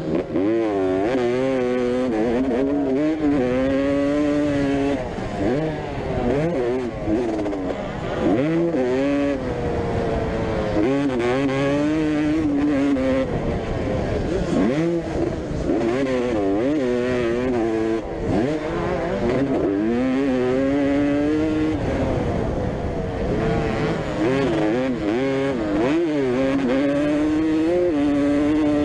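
Vintage motocross bikes racing. Their engines rev up and drop back over and over, the pitch climbing and falling every second or two as riders accelerate and shut off.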